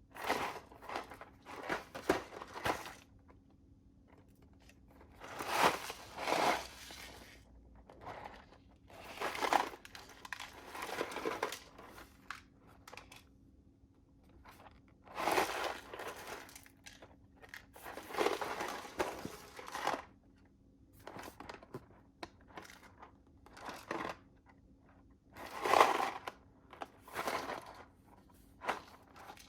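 Food packaging being handled and opened: a run of separate crinkling and tearing bursts, each lasting a second or two, with short pauses between them.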